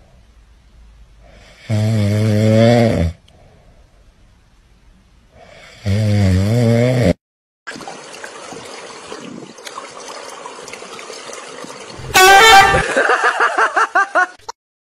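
Cat snoring: two long, loud, droning snores about four seconds apart. Then a steady rushing noise, and near the end a loud, high, wavering cry.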